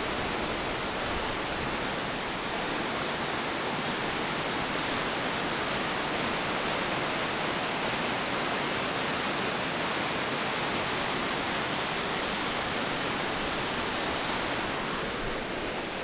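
A tall waterfall, about 100 feet high, rushing steadily: an even, unbroken hiss of falling water.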